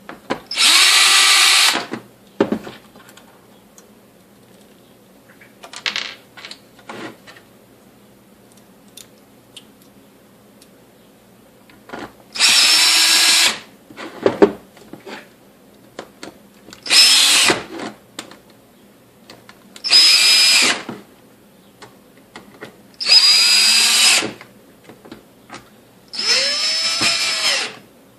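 Electric screwdriver running in six short spurts of one to two seconds each, driving home the screws that close up a stapler's housing.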